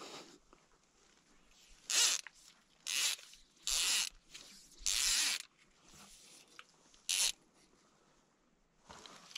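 Fly line sliding through the rod guides: five short hisses, roughly a second apart.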